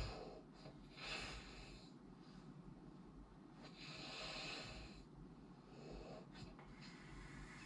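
A sleeper's soft, hissy breathing in the pause between snores, with no snoring tone: a short breath about a second in and a longer one around four seconds in.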